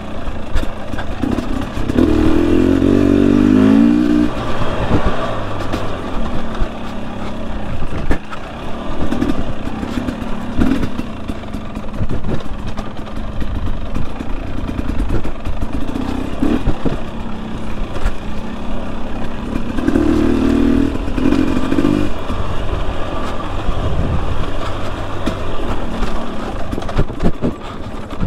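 2021 Husqvarna TE250i fuel-injected two-stroke single-cylinder dirt bike engine running under load on rough trail, the revs rising sharply about two seconds in and again about twenty seconds in, with frequent short knocks and clatter throughout.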